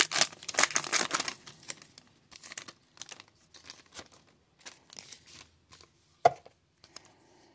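Foil wrapper of a baseball card pack being torn open: a dense crinkling rip in the first second and a half, then softer rustling and ticks as the wrapper and cards are handled, with one sharp click about six seconds in.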